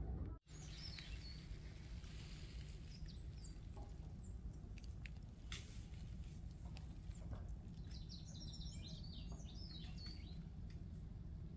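Small birds chirping, with a quick flurry of calls about eight seconds in, over a steady low rumble. The sound cuts out briefly about half a second in.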